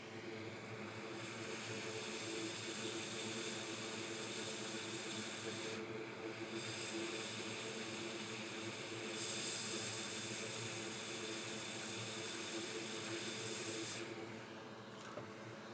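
Steady, airy hiss of a hot air rework station blowing onto a circuit board to solder a small capacitor. The hiss breaks off briefly about six seconds in and stops about fourteen seconds in.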